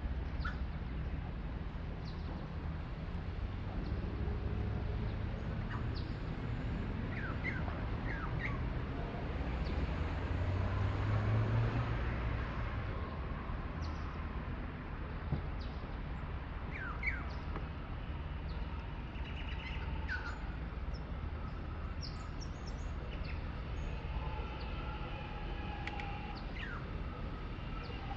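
Small birds chirping now and then in short rising calls over a steady low rumble. Near the end a faint steady whine of an approaching electric suburban train comes in.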